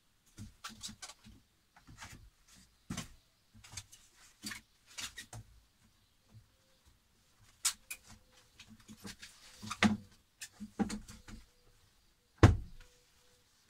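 Irregular knocks, clicks and rustling of food packs and containers being handled and stowed in a camper's fridge and freezer, with one heavier thump near the end.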